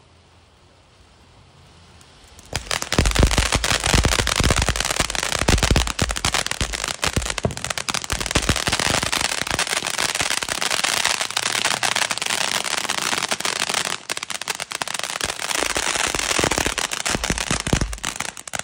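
Ground fountain fireworks: a faint hiss of spraying sparks, then about two and a half seconds in a sudden loud, dense crackling of rapid pops that keeps going.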